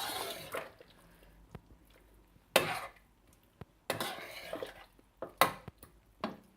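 A spoon stirring tinda and chicken curry in a cooking pot, scraping and clinking against the pot in several separate strokes, mixing in the freshly added cumin and ground spice.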